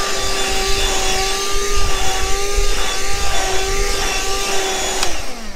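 Small electric motor running steadily with a constant hum and airy hiss. It is switched off with a click near the end and winds down, its pitch falling.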